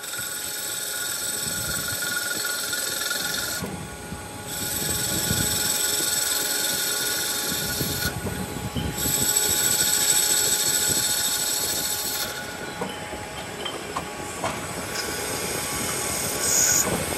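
CNC lathe cutting tool turning a spinning cast-aluminium motorcycle wheel hub: a steady cutting noise with high-pitched metallic squealing tones that break off briefly about 4 and 8 seconds in and fade in the last few seconds.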